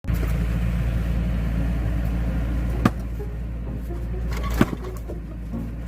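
Axe striking a knotty oak log twice, sharp blows about two seconds apart, over a steady low hum.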